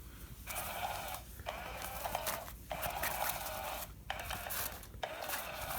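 Battery-powered motorized cat toy running noisily. It starts about half a second in and breaks off briefly every second or so.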